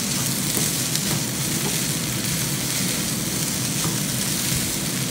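Fried rice sizzling steadily in a frying pan as it is stirred and turned with a spatula.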